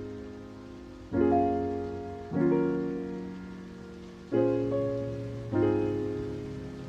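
Background music: slow piano chords, four in all, each struck and left to ring and fade.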